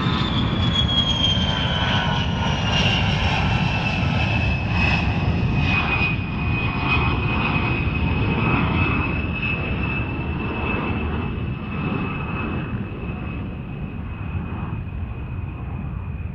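Fighter jet engine: a high whine that falls in pitch over the first few seconds and then holds steady, over a deep rumble that slowly fades toward the end.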